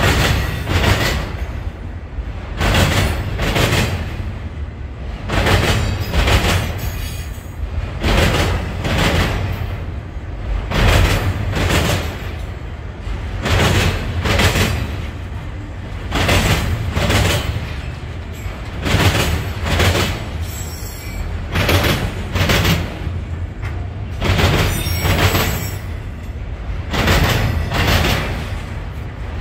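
Steel wheels of a passing BNSF autorack freight train clattering over a railroad diamond crossing: a continuous run of sharp clacks in groups as each truck's wheels strike the crossing, over a low rolling rumble.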